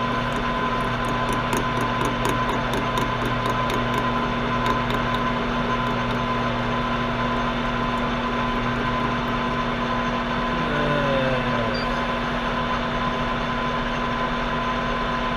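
Metal lathe running at low speed with a Delrin blank chucked on a mandrel: a steady motor hum, with a light regular ticking in the first few seconds and a brief falling tone a little after the middle.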